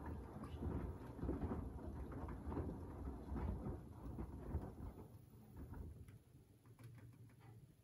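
Beko WDR7543121S washer-dryer drum tumbling a sudsy wash load: water sloshing and splashing, dying away about five seconds in as the drum stops turning, leaving a few faint ticks.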